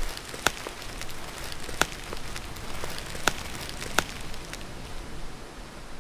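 Footsteps on a dry woodland path strewn with leaves and twigs, with four sharp crackles underfoot over a steady outdoor hiss.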